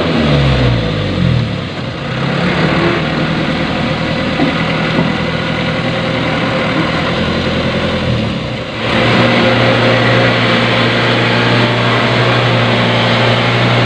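Loaded dump truck's engine labouring to pull the truck through deep, slippery mud. The engine note slides down and up in the first couple of seconds, then holds a steadier, stronger note from about nine seconds in.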